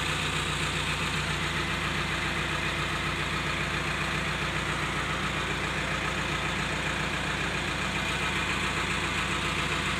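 Mobile hydraulic crane's diesel engine idling steadily, a constant low hum.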